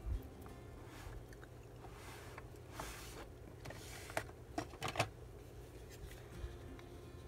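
Faint rustling and a few light clicks of paper and a soft coffee-dyed dryer sheet being pressed and folded onto a paper tag by hand, with small clusters of ticks about three and five seconds in.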